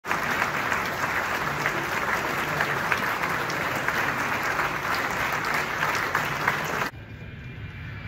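Large audience clapping in a hall, a dense steady applause that cuts off abruptly about seven seconds in, giving way to a quieter low rumble.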